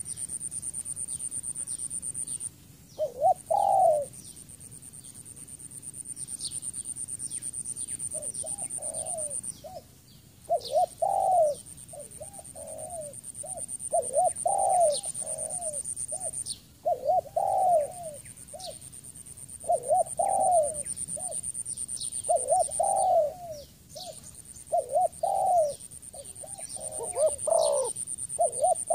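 Spotted dove cooing in phrases of short, arching coos: one brief phrase about three seconds in, then phrase after phrase from about eight seconds on. A steady high-pitched buzz cuts out and restarts every few seconds, and small birds give faint high chirps.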